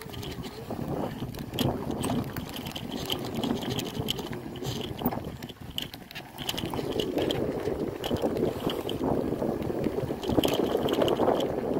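Bicycle rolling over a sandy dirt trail: a steady rumble of tyre and wind noise with frequent rattles and clicks from the bike, getting louder about halfway through.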